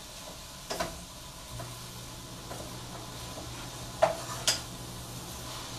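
Chard leaves being stirred in a hot pan: three sharp knocks of a utensil against the pan, the loudest about four seconds in, over a faint sizzle.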